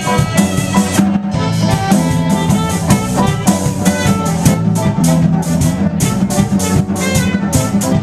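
Live band playing an up-tempo instrumental passage: drum kit with a steady beat, electric guitar and saxophone.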